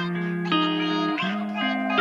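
Music: the melodic intro of a hip hop beat, held notes with a guitar-like plucked tone and no drums.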